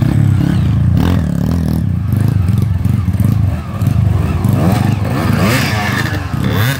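Dirt bike engines revving hard under load as two off-road motorcycles climb a muddy bank one after the other, close by. Their pitch rises and falls with the throttle.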